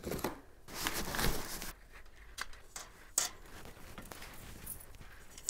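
Cardboard and plastic packaging rustling for about a second and a half as a folding light-stand frame is unpacked. Then come scattered faint clicks and knocks as the frame is handled and unfolded, one of them sharper a little after three seconds.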